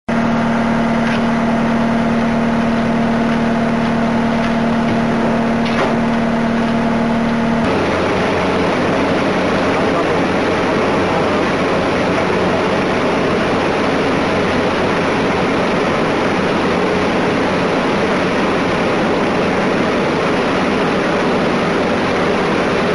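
Heavy road-paving machinery laying tarmac, engines running steadily. About eight seconds in the sound changes abruptly from an even engine hum to a rougher, noisier machine rumble.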